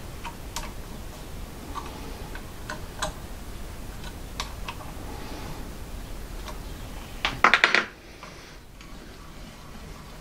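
Light metallic clicks and taps as parts of a tool and cutter grinder's tool-holding setup are handled and adjusted, with a quick rattle of several sharp clicks about seven and a half seconds in.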